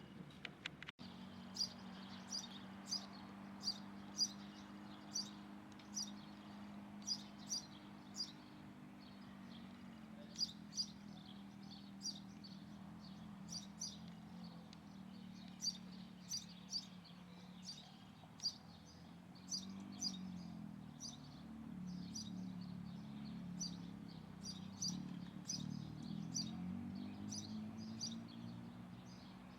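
A small bird chirping over and over: short, high, sharp chirps at about two a second. Under it runs a low steady hum that wavers about two-thirds of the way through.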